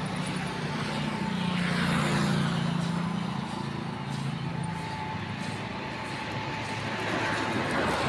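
Road traffic: a motor vehicle passes with a low engine hum that drops in pitch as it goes by, and another swells up near the end.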